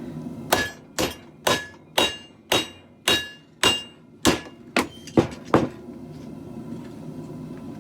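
About eleven hammer blows, roughly two a second, forging hot leaf-spring steel on an anvil. Each strike rings briefly, and the blows stop about two-thirds of the way in. A propane forge hums steadily underneath.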